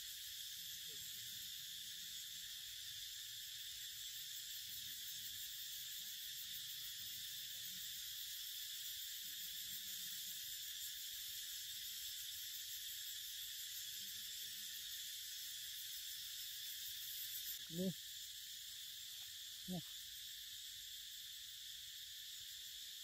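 Steady, unbroken high-pitched drone of insects in the forest, with two brief thumps about two seconds apart near the end.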